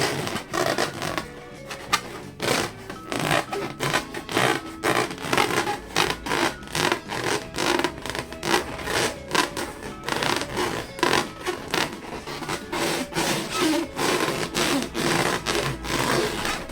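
Rubber balloons being rubbed and squeezed by hand, a quick uneven run of rubbing strokes and short squeaks, with music underneath.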